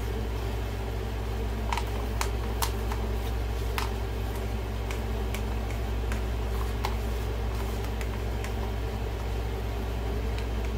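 Light clicks and taps of a wooden stir stick scraping thick acrylic paint out of a plastic cup, scattered through the middle of the stretch. Under them is a steady low hum.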